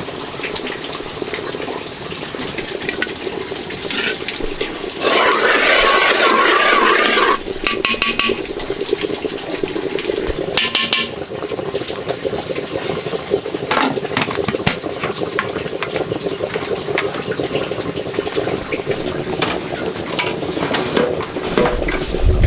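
Metal ladle scooping and clinking in a wok over a wood fire, with liquid pouring and splashing. A louder stretch of about two seconds comes about five seconds in.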